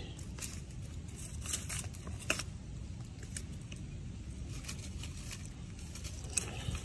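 A hand scraping and picking soil, twigs and rubble away from a half-buried glass bottle: scattered scrapes and rustles with short clicks, the sharpest a little over two seconds in.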